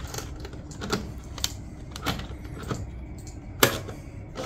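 Scattered clicks and knocks of a receipt printer being handled as the paper roll is loaded, with a sharp snap about three and a half seconds in as the paper cover is pressed shut.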